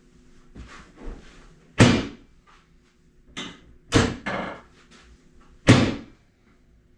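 Chiropractic adjustment thrusts: three loud thumps about two seconds apart, with a few softer knocks between, on a joint the chiropractor finds locked up and long stuck.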